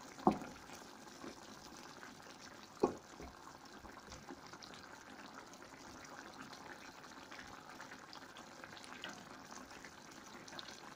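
Chicken curry in coconut-milk sauce simmering in a pan: a steady, soft bubbling with small pops. Two sharp knocks stand out, one right at the start and another about three seconds in.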